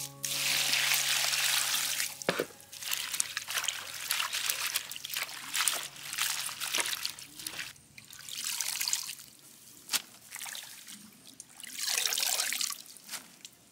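Water pours in a steady stream into a plastic basin of water spinach for about two seconds. Then comes irregular splashing and sloshing as hands wash the greens in the water, with a last burst of splashing and dripping near the end as the wet greens are lifted out.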